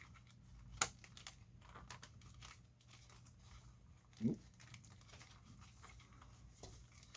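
Faint rustling, crinkling and small clicks of hands working a soft canopy with Velcro onto a toy RC truck's plastic body, with one sharper click just under a second in.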